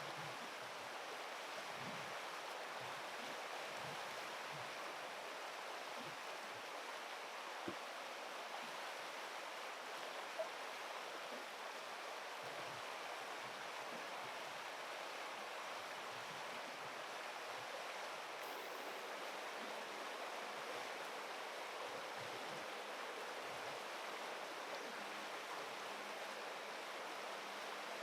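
Steady rush of flowing river water, with two faint clicks about eight and ten seconds in.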